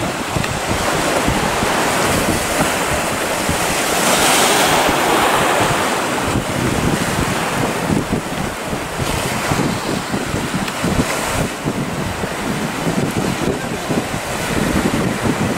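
Wind buffeting the microphone over the rush of choppy sea and breaking waves, swelling for a moment about four seconds in.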